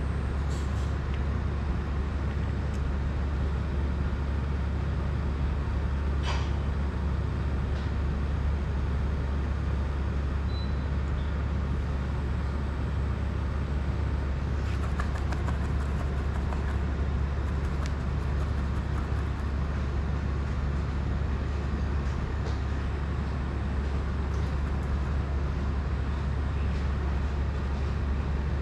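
A steady low hum of a fan or motor running without change, with a few faint clicks from small tools and parts being handled on the bench.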